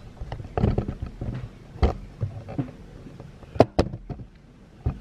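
Handling noise at a table: a few scattered knocks and clicks, with two sharp clicks close together about three and a half seconds in.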